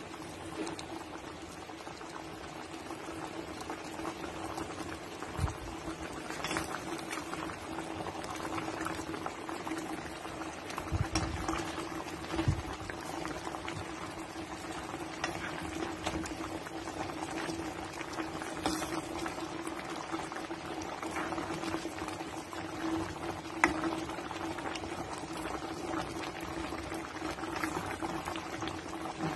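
Pot of pork spare ribs simmering in a sauce of banana catsup, cola and soy sauce, bubbling steadily with scattered louder pops, over a steady low hum.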